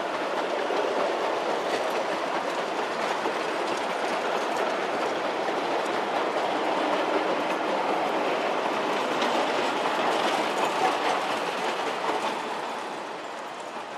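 A long train of narrow-gauge slate wagons rolling past, their steel wheels running over the rails in a steady noise that fades a little near the end as the wagons move away.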